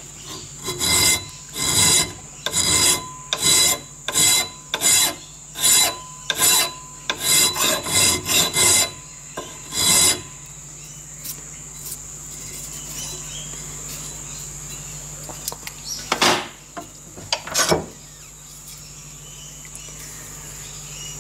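A hand smooth file stroking along the edge of a metal plate clamped in a bench vise: a quick run of about fourteen even strokes over the first ten seconds, then a pause broken by two single strokes.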